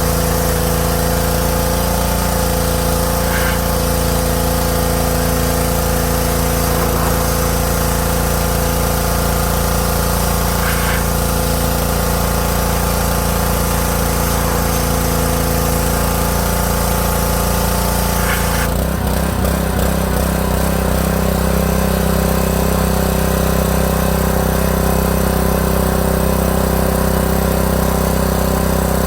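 Champion 3200 psi pressure washer's single-cylinder Honda GC190 engine running steadily, driving the pump while spraying. About two-thirds of the way through, the engine's tone changes abruptly and holds steady at the new pitch.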